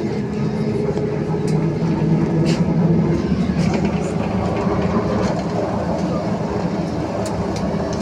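BKM 321 trolleybus heard from inside the cabin as it pulls away from a stop and rolls down the street: a steady electric drive hum with a few held tones over road noise, and light rattles and ticks from the body.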